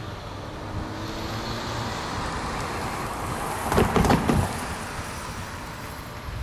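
Road traffic: cars driving across a railroad grade crossing. One passes close about four seconds in, the loudest moment, with a few quick thumps.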